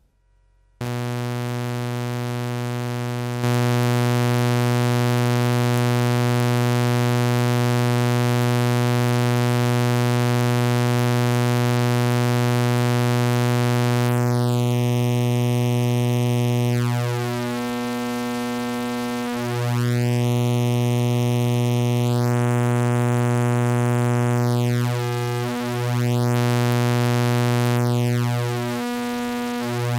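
Malekko Richter Oscillator II sawtooth waves holding one steady low synth tone, which grows louder about three and a half seconds in. From about halfway, the phase control is turned: sweeping notches run through the upper harmonics and the low end dips and returns several times as the two saw outputs shift in phase against each other.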